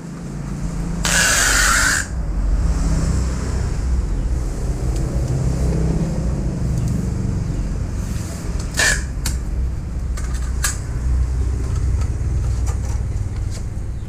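Adhesive tape ripped off its roll in one harsh burst lasting about a second, about a second in, as a new capillary tube is taped to a refrigerator's sheet-metal back. Afterwards there are a few sharp taps and handling noises on the panel over a steady low rumble.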